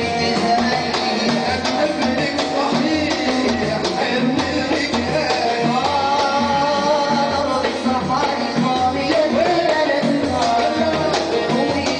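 Live Saudi wedding-party music of the shakshaka kind: a percussion troupe drumming a steady beat under oud and Korg keyboard melody, with a wavering held melodic line about halfway through.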